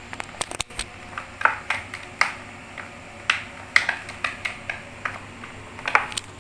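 Irregular light clicks and taps of a kitten's claws and paws scrabbling in a small plastic tray as it squeezes itself in.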